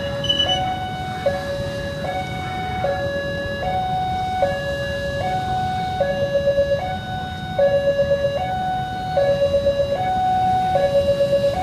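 Indonesian railway level-crossing siren sounding a two-tone hi-lo alarm, switching between a higher and a lower tone about every 0.8 seconds; in the second half the low tone pulses rapidly. A steady low rumble runs underneath.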